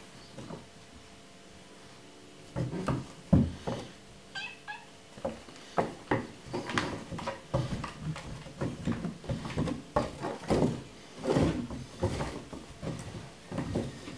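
A tabby kitten play-fighting with a person's hand on a wooden floor: repeated thumps, scrabbling and scuffling of paws and body, the loudest thump a few seconds in, with a few short high-pitched mews about four seconds in.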